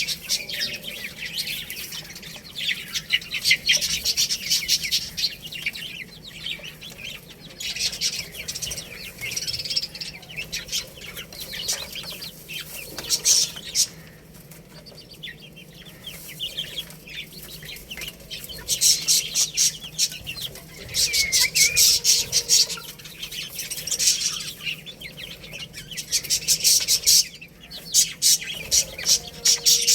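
Baby chicks peeping: many short, high-pitched chirps packed close together in bursts of a few seconds, swelling and fading in loudness.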